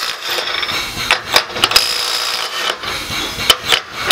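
Irregular metal clicks and clinks of steel sockets being handled and fitted onto bolts on a steel test plate.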